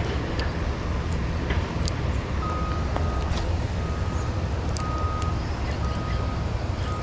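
A motor vehicle's engine runs steadily close by with a low hum. A few seconds in, a reversing alarm starts beeping about once a second.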